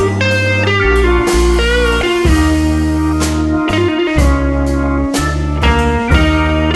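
Background music: a bluesy guitar tune with sliding notes over a steady bass and drum beat.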